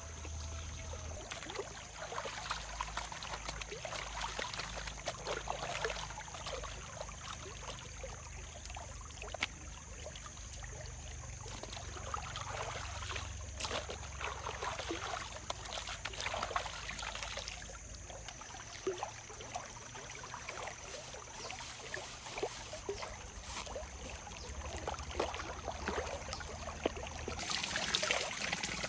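Shallow stream water flowing and trickling, with many small splashes; the rush of water grows louder near the end.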